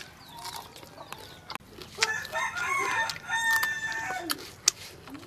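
A rooster crowing once, a single drawn-out call starting about two seconds in and lasting about two seconds.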